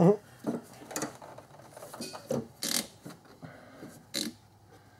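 Hands working rubber hoses and their spring clamps loose in a 2001 Infiniti QX4's engine bay: irregular clicks, scrapes and rubbing knocks, the sharpest about two and three-quarter seconds in and again near four seconds. A brief vocal grunt comes at the very start.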